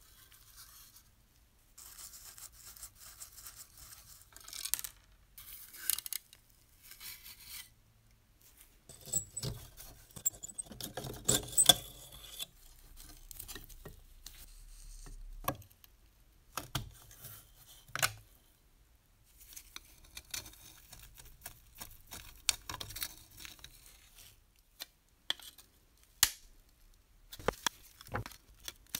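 A small screwdriver scraping and prying at the rusty metal body of a pre-war Märklin model locomotive as it is taken apart by hand. The scraping and rubbing come in short spells, with several sharp metallic clicks in the second half.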